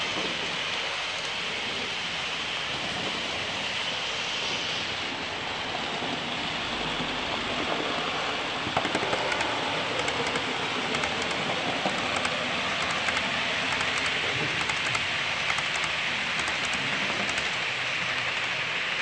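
Model trains running on a model railway layout: a steady rushing whir of small motors and wheels on track, with rapid irregular clicking from wheels over rail joints and points starting about nine seconds in as a train passes close.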